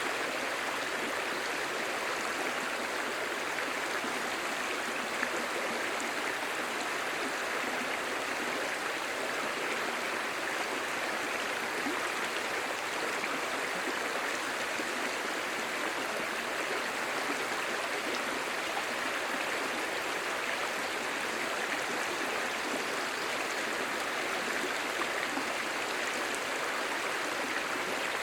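Clear shallow stream babbling over stones: a steady, even rush and burble of running water.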